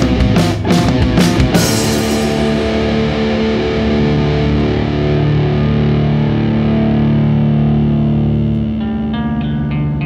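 Live instrumental post-rock band: drum hits in the first second and a half, then the drums drop out and distorted electric guitar and bass hold sustained notes. Near the end a quick, evenly repeating figure of higher notes with echo-type effects comes in over the held notes.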